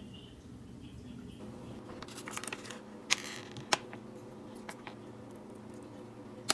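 A metal spoon scooping thick ssamjang soybean paste from a plastic tub: soft squishing and rustling, with sharp clicks of the spoon against the tub twice near the middle and once at the end.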